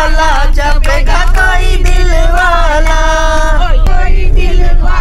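A group of passengers singing a Hindu devotional bhajan (kirtan) together, with long held notes, over the steady low rumble of the moving vehicle.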